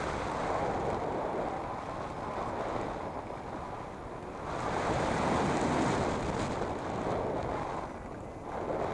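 Airflow rushing over the microphone of a hang glider in flight. It is a steady wind rush that swells louder about halfway through, then eases off.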